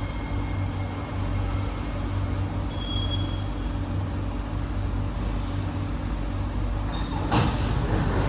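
SMRT C151B train standing at a platform, its onboard equipment humming steadily, with a few faint short high-pitched tones. About seven seconds in, a loud hiss of noise starts.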